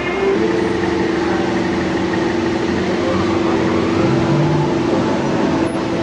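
Car engines running in a street as cars roll slowly past: a steady drone over a dense background din.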